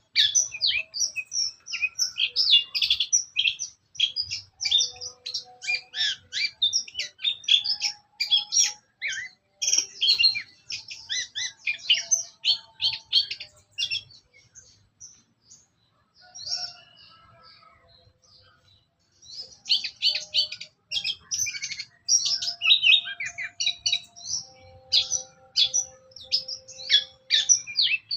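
Long-tailed shrike (cendet) singing a rapid, chattering song of many quick notes. It breaks off for a few seconds about halfway, then starts again.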